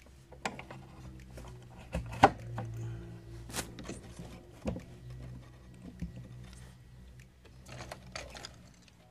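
Scattered clicks and knocks from handling the fuel pump and fuel-gauge sender assembly of a Volkswagen Jetta Mk3 as its parts and hoses are moved into place. The loudest knock comes a bit over two seconds in, over a low steady hum.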